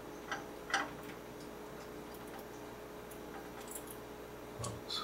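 A few small, sharp clicks and light taps as fingers work a tiny screw and the micro switch's metal bracket loose inside a gas water heater, ending with a soft bump and a click.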